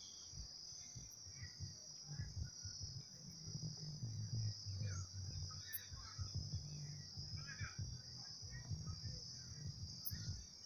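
Steady high-pitched insect chorus, like crickets trilling without a break, with a faint irregular low rumble underneath.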